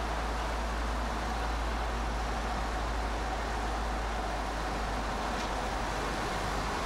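Car driving at a steady pace along a town street: even road and engine noise with a constant low rumble, and no change in speed.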